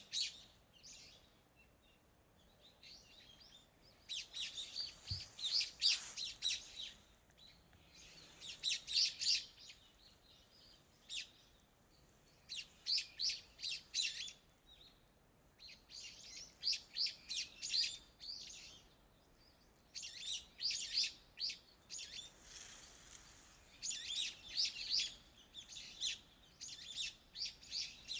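Songbird singing: repeated phrases of quick, high chirping notes lasting a second or two each, coming every few seconds over a faint steady background hiss.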